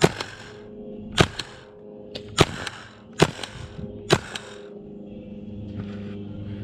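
HPA-powered airsoft rifle (Tippmann M4) firing five single shots about a second apart, each sharp crack followed by a fainter one a fraction of a second later.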